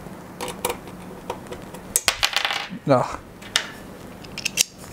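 Scattered light metallic clicks and clinks of a screwdriver bit being picked out and fitted to a hand driver.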